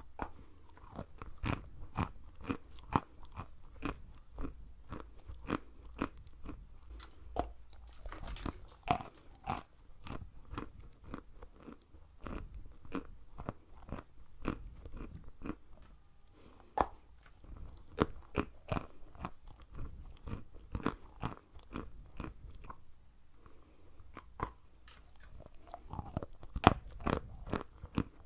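Close-miked biting and chewing of large crumbly white chunks: an irregular string of dull crunches, several a second, with sharper, louder bites now and then.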